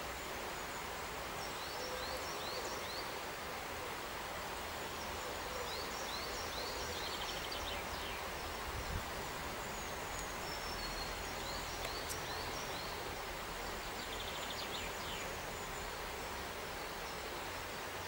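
Grey wagtail giving short, sharp, high call notes in quick runs of three to five, four bouts in all, two of them with a brief buzzy trill, over a steady background hiss.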